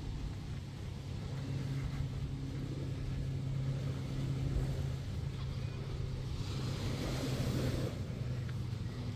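Motorboat engine running with a steady low hum, over wind on the microphone and water noise, with a brief hissing rush about seven seconds in.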